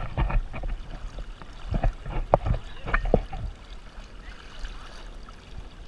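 River water sloshing and splashing against a GoPro camera held at the water's surface. A cluster of knocks and splashes comes in the first three and a half seconds, then it settles into a quieter, steady wash.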